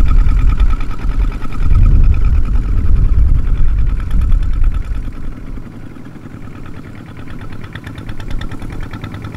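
Small single-cylinder diesel engine of a Kubota RT120 tractor running with a rapid, regular chug; it grows quieter about halfway through.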